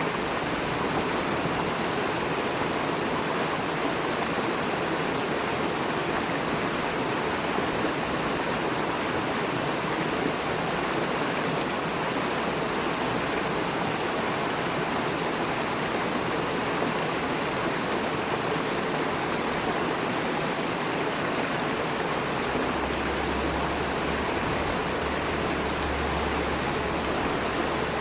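Fast-flowing river rushing over rocks: a steady, dense rush of water. A low rumble joins in the last few seconds.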